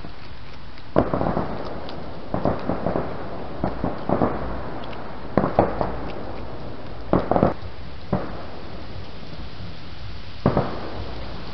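Fireworks going off at a distance: irregular sharp bangs and pops, some in quick clusters, each with a short echoing tail.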